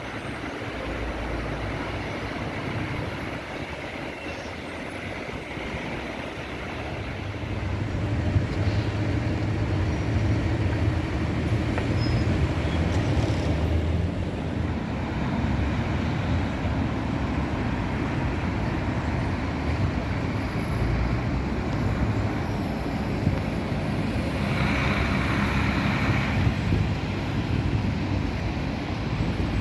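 Street traffic: cars and buses driving past, a steady mix of engine rumble and tyre noise that grows somewhat louder after about eight seconds.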